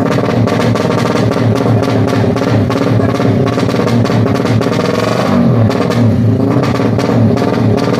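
Loud music with a steady drum beat.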